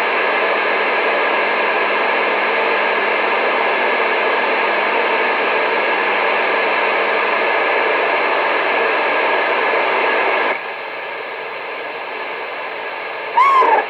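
Radio receiver hissing with steady static while no station is talking. The hiss drops in level about ten and a half seconds in, and a brief falling squeal with a click comes near the end.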